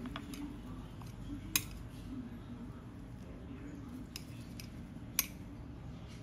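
Metal chopsticks clicking against a ceramic plate while picking up pieces of rolled omelette: a few light taps, the two sharpest about a second and a half in and about five seconds in, over a low steady room hum.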